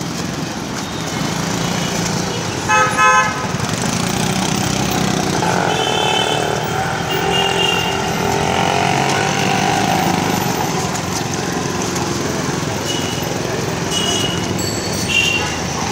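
Road traffic noise, with a vehicle horn honking briefly about three seconds in.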